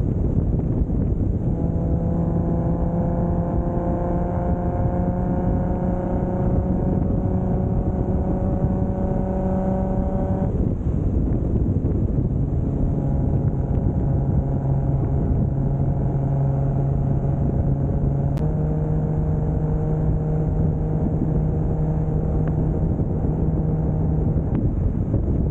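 Single-turbo 2JZ inline-six in a Toyota Soarer pulling under light throttle, its note rising slowly. It drops away about ten seconds in and comes back lower, as with an upshift, then holds a steady cruise. Heavy road and wind noise runs underneath.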